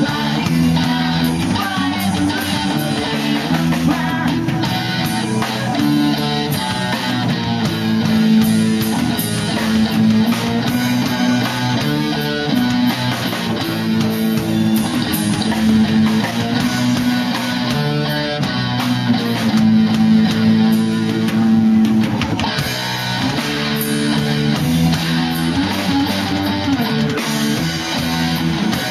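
Rock music led by guitar, with a drum kit keeping the beat.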